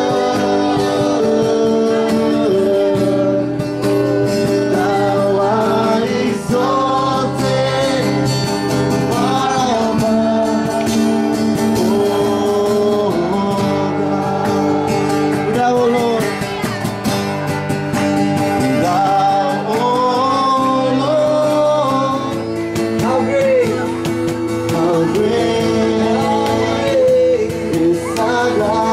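A song with singing over guitar accompaniment, held sung notes over steady chords.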